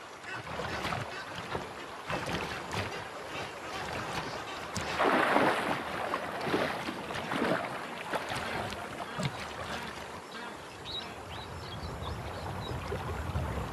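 Water splashing and sloshing as a large crocodile moves through shallow water dragging a hippo carcass. The splashing surges louder several times about five to seven and a half seconds in.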